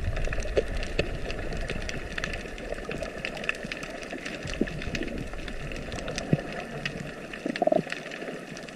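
Underwater sound through a submerged camera: a steady low hum with scattered crackling clicks throughout.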